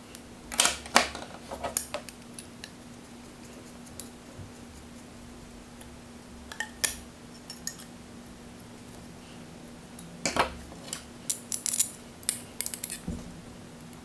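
Small metal parts clinking and clicking in scattered bursts: screws, washers and hand tools handled against a carbon-fibre drone frame plate while stack screws are fitted. A faint steady hum lies underneath.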